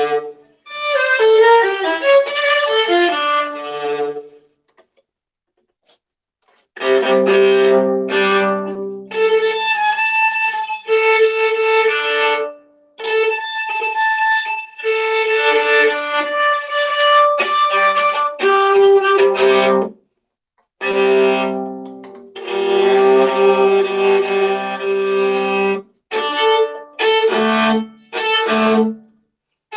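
Solo viola played with the bow: sustained notes and running passages in phrases, recorded through a crunchy-sounding microphone. There is a few-second silence after the first phrase and a short pause about two-thirds of the way through.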